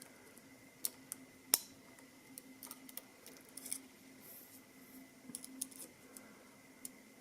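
Small metal clicks and scrapes of a lock pick probing inside a CX5 high-security lock, feeling for its sliders, with one sharper click about a second and a half in. A faint steady hum lies underneath.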